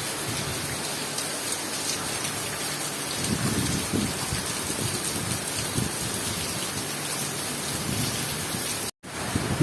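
Heavy rain falling steadily, a dense even hiss of downpour on surfaces. The sound cuts out for an instant near the end.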